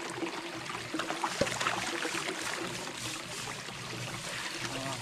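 Running water of a small stream, trickling steadily.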